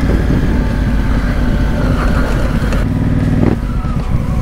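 Honda CRF1000L Africa Twin's parallel-twin engine running as the motorcycle rides along a dirt trail, with a steady note that holds even for about half a second a little after three seconds in.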